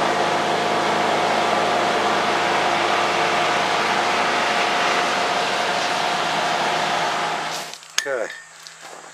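Forge blower running steadily, forcing air through the fire while the steel awl heats toward a dull orange for hardening. The blower stops about seven and a half seconds in, and a single sharp click follows.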